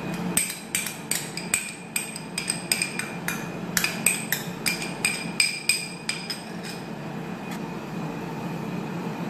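A small metal spoon clinking and scraping against a small glass dish while Dijon mustard is worked out of it, with about three sharp, ringing clinks a second. The clinking stops about two-thirds of the way through.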